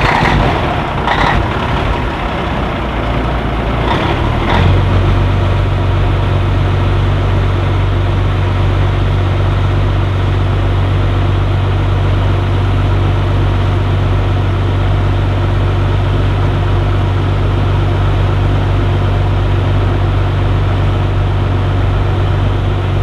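Peterbilt 362 cabover semi's diesel engine just after a cold start, running unevenly for the first few seconds, then settling into a steady idle about five seconds in.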